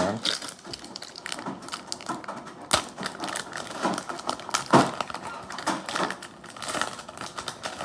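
Foil booster-pack wrapper crinkling and tearing as it is ripped open by hand, with two sharper snaps about three and five seconds in.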